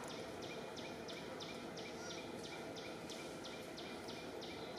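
An insect chirping in an even rhythm of about three short, high, raspy pulses a second, over a steady hiss of forest background.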